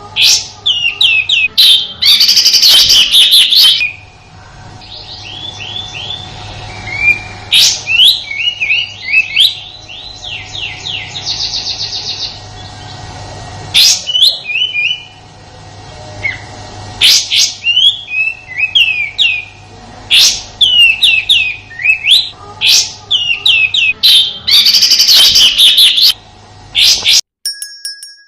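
Kapas tembak songbird giving its harsh, rapid 'tembakan' call: quick runs of loud, sharply gliding chirps in bursts, with dense volleys near the start and again near the end. The song cuts off suddenly shortly before the end, and a few faint electronic beeps follow.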